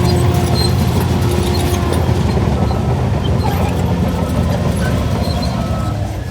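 Shantui DH17C3 LGP bulldozer's diesel engine running steadily under load while pushing soil.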